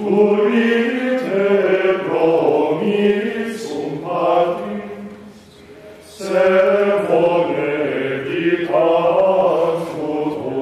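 Choir singing Latin plainchant in long sustained phrases, with a breath pause about six seconds in before the next phrase begins.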